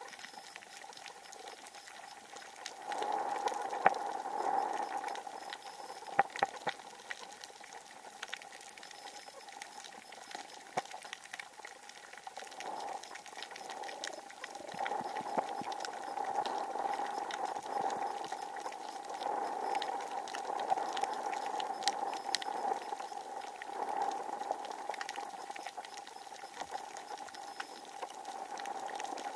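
Underwater reef ambience: a dense, constant crackle of tiny clicks, typical of snapping shrimp on a coral reef, under a steady hum that swells about three seconds in and again from about halfway.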